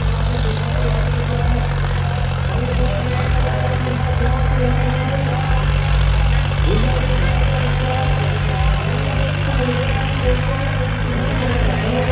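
Tractor diesel engine running steadily at high revs under load, with a low, even drone.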